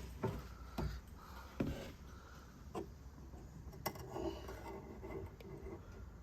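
A handful of irregular clicks and knocks from a hand wrench working on the new oil drain plug as it is tightened.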